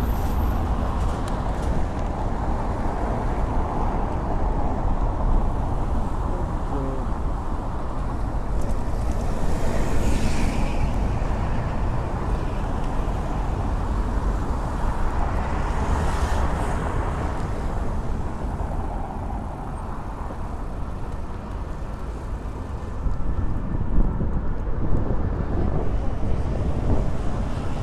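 Road traffic passing on a cobbled city street, with vehicles swelling louder as they go by, about a third of the way in and again just past halfway. A steady low rumble of wind on the phone's microphone sits under it.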